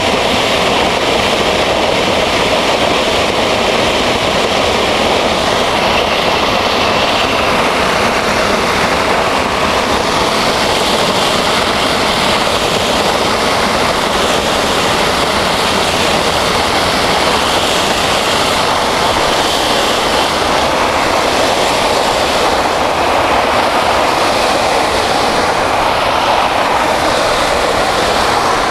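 Water rushing at full flow out of an open fire hydrant outlet and spraying across pavement, a loud steady rush that does not let up. This is the hydrant's annual flush, which checks that the valve works and clears debris from the service line.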